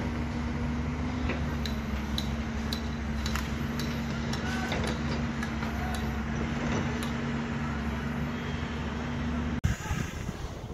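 Steady low hum of a running engine, with scattered sharp metallic clinks over it from steel rebar being handled. The hum cuts off suddenly near the end, giving way to a noisier outdoor background.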